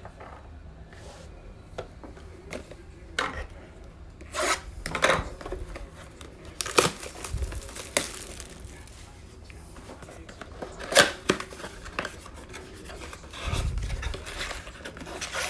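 Trading-card pack wrapper being torn open and crinkled, with cards rubbing and sliding against each other as they are handled: several short crackling, rustling bursts.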